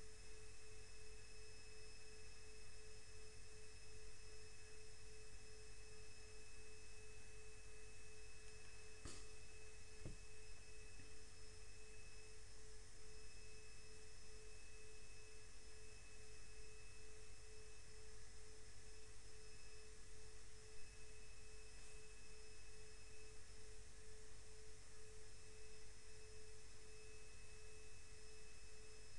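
Steady electrical whine from the recording setup: one constant mid-pitched tone with fainter, higher steady whines above it, over a low background hiss and rumble. A faint click about nine seconds in.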